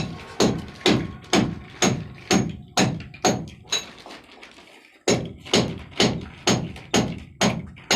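Steady hammering, about two blows a second, with a brief pause about four seconds in before the blows resume.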